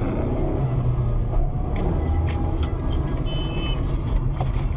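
Car engine running with road noise and a few sharp clicks, and a short high beep about three seconds in.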